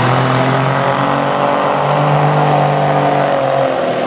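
Semi truck's diesel engine running hard under load as it drags the weight sled, a steady drone whose pitch sags a little near the end.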